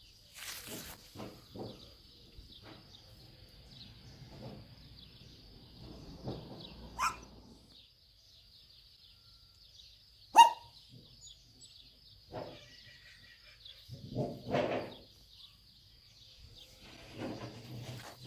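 A kitten moving through short grass, with soft scattered rustles that are loudest about fourteen seconds in. Two short high-pitched chirps cut through, the louder about ten seconds in. A faint steady high whine runs underneath.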